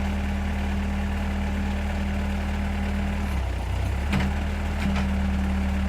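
Bobcat T140 compact track loader's diesel engine running steadily at a low idle, its note dropping slightly about three seconds in. Two light knocks come about a second apart near the end.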